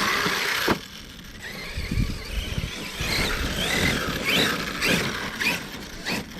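Brushless electric motor of an Arrma Kraton 6S RC truck whining under throttle. The loudest burst comes right at the start, then the pitch rises and falls several times as the throttle is worked in short bursts.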